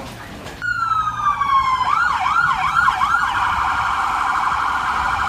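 Emergency vehicle's electronic siren cutting in suddenly: a falling wail, then a few quick rising-and-falling yelps, then a fast steady warble.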